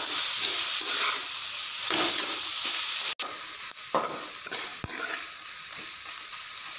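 Chopped onions and green chillies sizzling in hot groundnut oil in a kadai, with a spatula scraping them around the pan in repeated strokes as the onions wilt. The sound cuts out for an instant about three seconds in.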